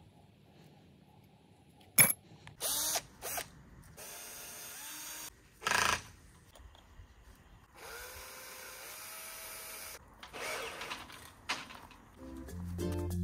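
Cordless drill-driver running in short bursts and two longer runs of a second or two, its motor whine rising as it spins up, driving screws to fix metal brackets to a wooden fence post. A sharp click about two seconds in.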